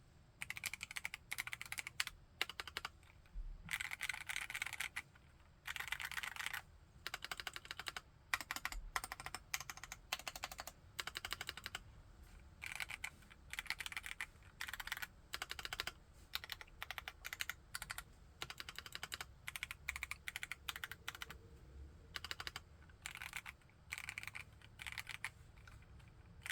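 Typing on an ABKO AR61D mechanical keyboard with linear Kailh Box Yellow switches: runs of rapid keystrokes broken by short pauses.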